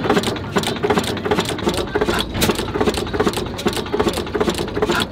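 Old stationary engine running, its exposed valve gear and moving parts clattering with rapid, uneven clicks.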